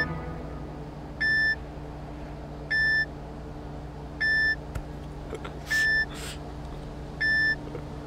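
Bedside patient monitor beeping: five short, even beeps about one and a half seconds apart, over a low steady hum.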